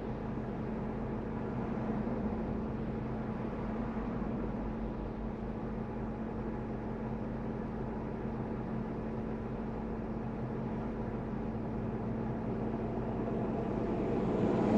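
Car driving at steady speed, heard inside the cabin: even tyre and road noise with a steady engine hum. The noise swells louder near the end.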